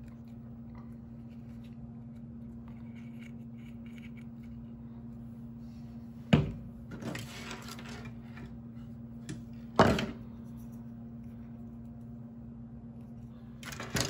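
Plastic parts of a stick vacuum being handled and set down on a wooden table: faint clicks and rattles, with two sharp knocks about six and ten seconds in. A steady low hum runs underneath.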